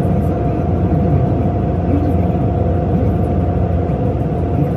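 Steady low rumble of a moving vehicle, engine and road noise running at an even level.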